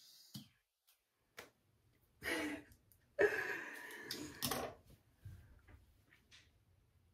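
A woman's short breathy sighs, one about two seconds in and a longer, louder one from about three to five seconds in, with quiet room noise between.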